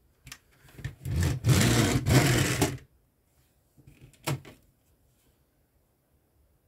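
Plastic LEGO pieces being handled on a baseplate: about two seconds of loud rubbing and scraping, then a single sharp click as a part is pressed onto the chassis plate.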